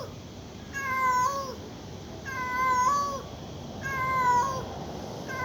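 Domestic cat meowing repeatedly: three drawn-out meows about a second and a half apart, each rising a little at the end, with a fourth starting near the end. The crying is put down by the person filming to the extreme heat.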